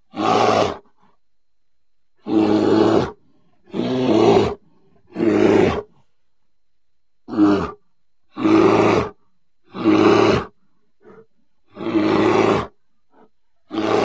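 Grizzly bear giving a series of short, loud roars, about eight in all. Each lasts half a second to a second and is separated by a pause of about a second, with a couple of brief faint grunts between the later ones.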